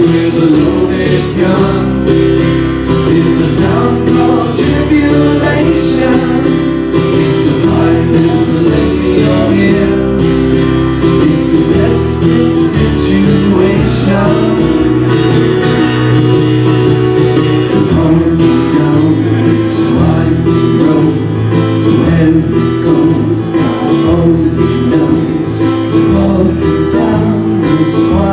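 Live acoustic band music: two acoustic guitars strummed over keyboard chords, playing continuously.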